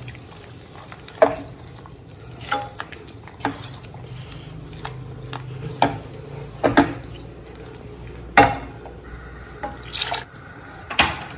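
Spoon stirring a milk-based gravy in a kadhai as milk is added a little at a time, with about eight sharp knocks of the spoon against the pan scattered through it.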